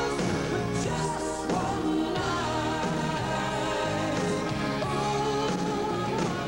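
Rock band music with a sung lead vocal over drums and guitars.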